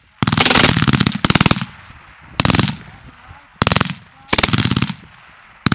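MG 3 machine gun firing short bursts at a very rapid rate, about five bursts in quick succession with the first the longest, and another starting at the very end.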